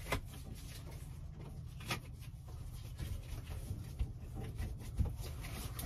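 Faint hand-handling noises: a few light knocks and rustles over a low steady hum.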